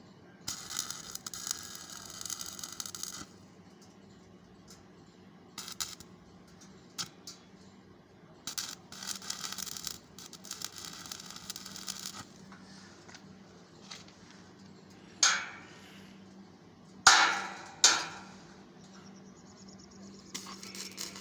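Electric arc welding crackling in two bursts of about three seconds each, over a steady low hum. Near the end come three sharp metallic strikes that ring briefly.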